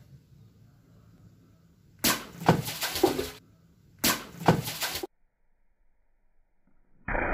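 A sword slashing through water-filled plastic bottles twice, about two seconds apart: each stroke is a sharp cut of plastic followed by water splashing and bottles knocking. A duller splash starts just before the end.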